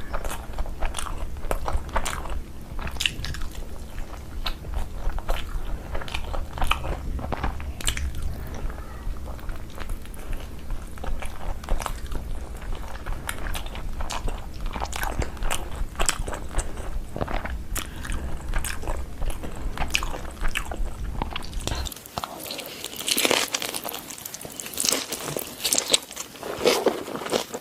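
Close-up eating sounds: a person chewing and biting into food, with many short crunches and mouth clicks, busier in the last few seconds. A low steady hum underneath cuts off about 22 seconds in.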